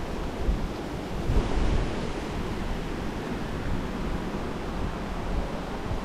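Wind buffeting the microphone over a steady wash of sea surf, with stronger gusts in the first two seconds.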